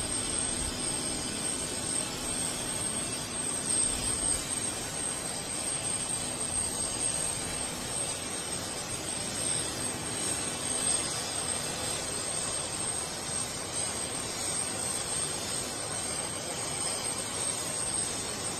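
Turbine engines of a parked helicopter running steadily: an even rushing noise with a constant high-pitched whine and a low steady hum underneath.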